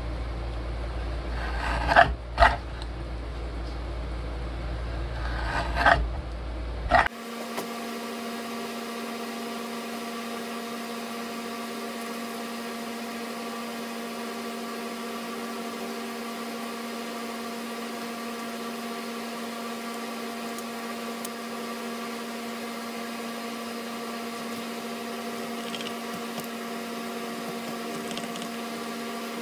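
Four sharp clicks from the paper cutter's blade arm and pivot within the first seven seconds. Then a steady hum made of several fixed tones from a running appliance or motor.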